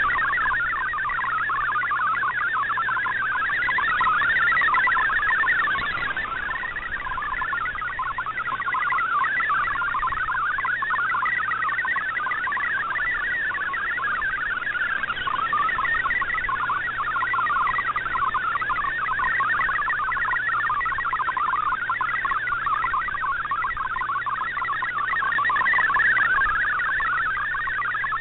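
MFSK64 digital data signal received on an Icom IC-R8600 shortwave receiver: a dense, fast warble of hopping tones over shortwave hiss, with a faint steady low hum underneath. The level swells and dips a little as the signal fades.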